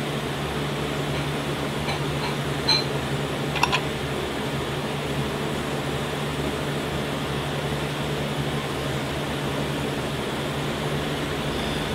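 Steady ventilation hum with a constant low drone, and a couple of faint clicks about three seconds in.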